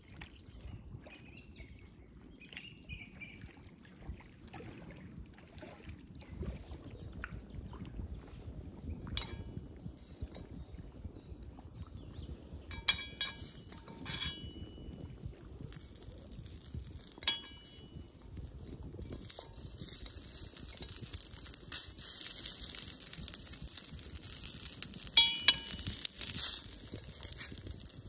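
Slices of sausage laid into a hot metal frying pan: several sharp metallic clinks of the knife against the pan, and a frying sizzle that comes in about two-thirds of the way through and grows louder.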